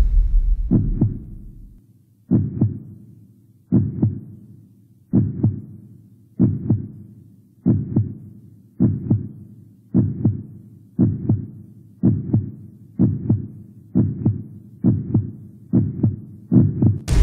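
Heartbeat sound effect: about sixteen pairs of low thumps. They speed up steadily from one beat every second and a half or so to little more than half a second apart.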